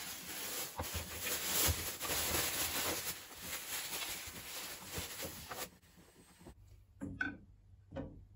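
Thin plastic bag rustling and crinkling as it is stretched over a plastic mixing bowl to cover it. The rustling stops after about five and a half seconds, followed by a few faint clicks near the end.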